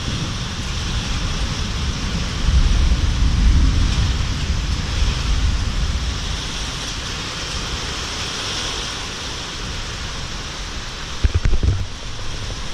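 Thunderstorm: a steady hiss of rain and wind, with a low rumble swelling about two seconds in and easing after five. A few sharp low knocks come near the end.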